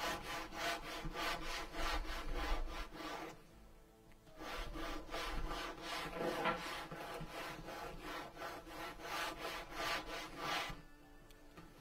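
Sandpaper scraping back and forth along the edge of a leather briefcase piece in quick, even strokes, about four a second. There is a short pause a few seconds in, and the sanding stops near the end.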